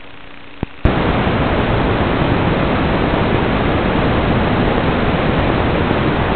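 Loud, steady static hiss from an analog FPV video receiver, starting suddenly about a second in after a faint hum and a short click: the drone's video signal has been lost.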